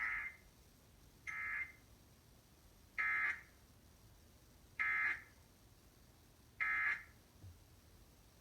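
Emergency Alert System SAME data tones: five short bursts of warbling digital tone, about one every one and three-quarter seconds. These are the end-of-message data bursts that close the alert broadcast.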